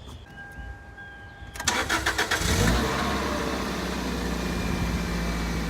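Toyota MR2 Spyder's 1.8-litre four-cylinder engine being started: the starter cranks for about a second, the engine catches with a brief rev, then it settles into a steady idle.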